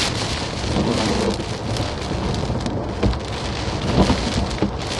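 Category 2 hurricane wind and driving rain: a dense, rushing noise with uneven low buffeting and a few stronger gusts.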